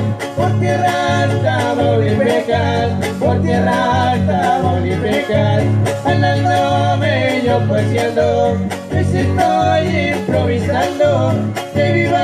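Huasteco trio playing a huapango: violin melody over the strummed rhythm of jarana huasteca and huapanguera, with a repeating bass.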